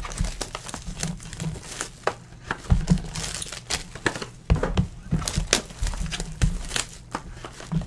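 Foil trading-card pack wrappers and the cardboard box being handled, with irregular sharp crinkles and crackles and soft thuds as things are set down on the mat.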